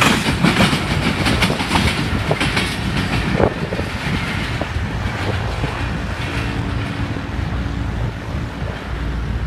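Container freight train's flatcars and brake van clattering over the rail joints as the tail of the train passes. The wheel clatter drops off after about three and a half seconds as the train moves away.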